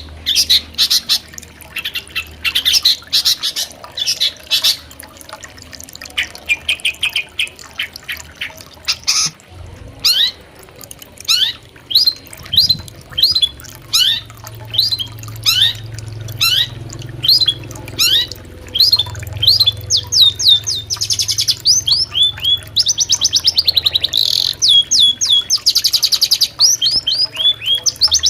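Long-tailed shrike (cendet) calling loudly, a harsh mix of chattering bursts. From about ten seconds in come sharp falling chirps, roughly two a second, then fast trills near the end.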